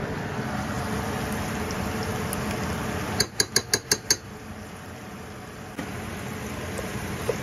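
A metal spoon tapped six times in quick succession against a rim, knocking minced garlic off into the pot, with a steady hiss around it.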